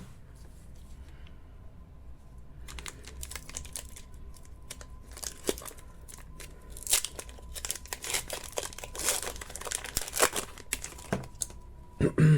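Foil wrapper of a Pokémon trading card booster pack being torn open and crinkled: a run of short, sharp crackling rustles starting about three seconds in. A brief low thud near the end.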